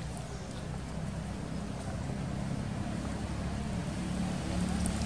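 Low, steady hum of a motor vehicle engine running, slowly growing louder.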